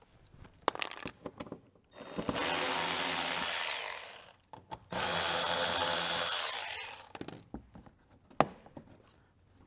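A cordless power drill/driver run twice for about two seconds each, spinning out a fender-liner bolt, with small clicks and knocks of handling around it and a sharp click near the end.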